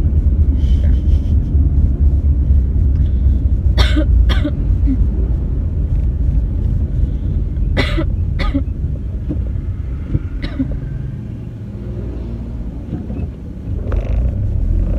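A woman coughing, about six coughs, several in quick pairs, over the steady low rumble of a moving car's cabin.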